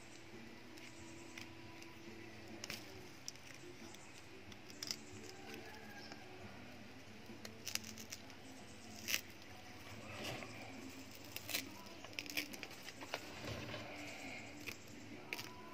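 A knife blade cutting into and peeling the fibrous leaf sheath off a young coconut plant's stem: scattered sharp clicks, scrapes and tearing snaps, coming more often in the second half.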